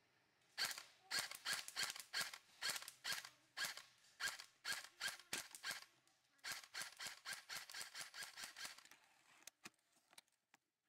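Airsoft gunfire: a rapid string of sharp pops, about three a second, with a short pause about six seconds in, trailing off into a few fainter shots near the end.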